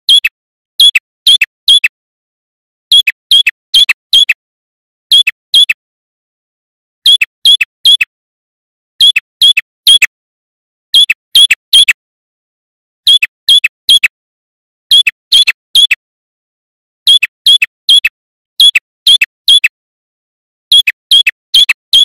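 Male ashy tailorbird singing: short phrases of three or four sharp, downward-sliding notes, repeated about every two seconds with clear pauses between.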